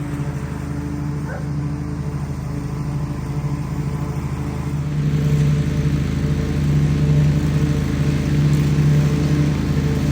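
Riding lawn mower engine running steadily, staying running now that a bad starter relay has been replaced; it grows louder about five seconds in.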